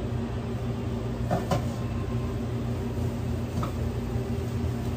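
Steady hum of sandwich-shop kitchen equipment, with two light knocks about a second and a half in and a fainter one a couple of seconds later as sandwiches are assembled at the counter.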